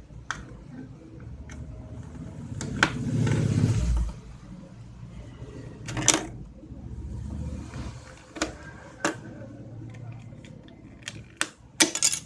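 Plastic clicks and handling noise from the cap of a USB modem being pressed with a fingernail and slid off. There is a longer rustling bump about three seconds in, a sharp click about six seconds in, and a quick run of clicks near the end.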